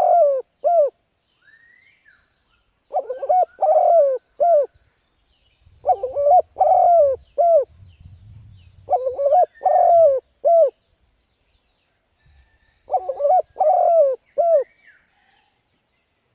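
Spotted dove cooing: a short phrase of about four low coos, repeated roughly every three seconds, four times over. This is the rapid 'gáy thúc' cooing that dove keepers play to excite decoy birds.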